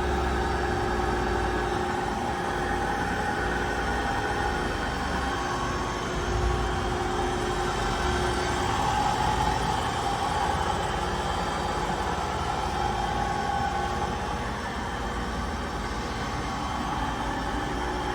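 DoAll 13 x 48 engine lathe running under power: a steady mechanical hum with a few steady whining tones from the motor and gearing.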